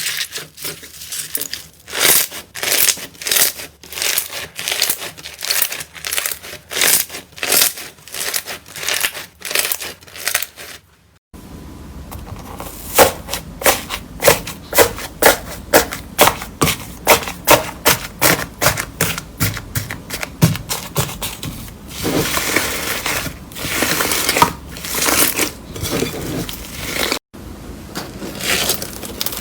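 Slime being squeezed, pressed and poked by hand, giving runs of crackling, clicking pops several times a second. It comes as three clips cut together, with short sudden breaks about a third of the way in and near the end.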